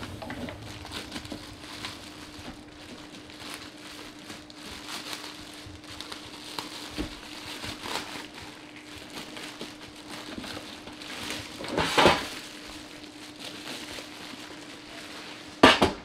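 Plastic bag crinkling and rustling as it is handled and pulled off a stainless steel pet water fountain bowl, with the metal bowl clinking and bumping on a wooden table. Louder bumps come about twelve seconds in and again near the end.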